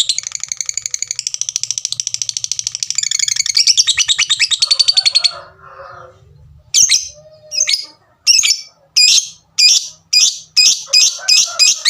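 A lovebird's long, rapid chattering trill (the 'ngekek') that stops about five seconds in; after a short pause it gives a series of sharp 'tik' calls that come faster and faster toward the end.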